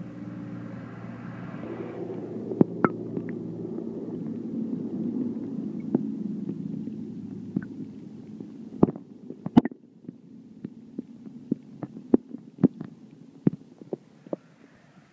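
Muffled low rumble and gurgle of water heard through a phone microphone held under water, fading away after about nine seconds. Sharp clicks and knocks come throughout, most often in the later part.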